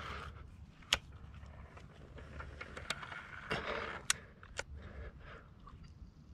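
Four sharp clicks spread over a few seconds, the first the loudest, with soft rustling, as a prone shooter handles his pellet rifle and gear, over a low steady rumble.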